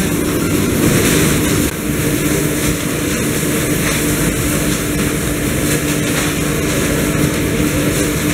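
Rice packing-line machinery running: conveyor belts and packing machines give a steady mechanical hum with an even rushing noise over it.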